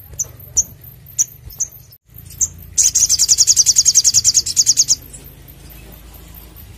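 Olive-backed sunbird calling: a few short, sharp high chirps, then, about three seconds in, a loud fast trill of high notes, about ten a second, lasting about two seconds.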